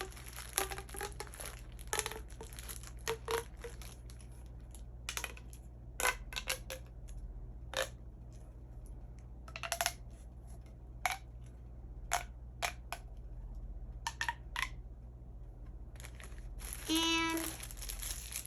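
Plastic pop tube being stretched, bent and pushed together, giving irregular sharp pops and clicks. Near the end there is a short pitched tone.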